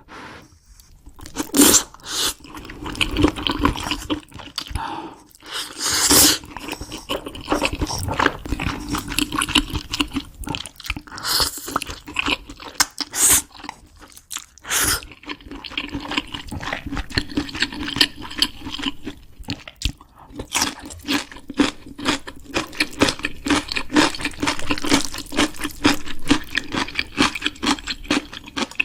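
Crunchy food being bitten and chewed close to the microphone: a long, dense run of irregular crunches.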